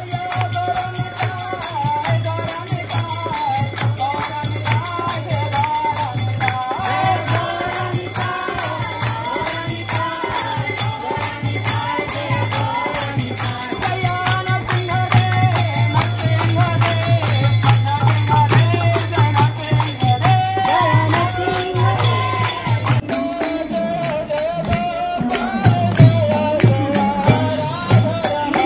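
Devotional kirtan: voices chanting a melodic mantra over fast jingling hand percussion. A steady low hum runs underneath and stops about 23 seconds in.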